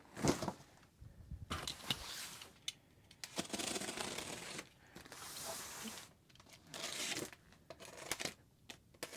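Cardboard model-kit boxes and packing material being handled: uneven rustling, crinkling and scraping with scattered clicks, and a thump just after the start as something is set down.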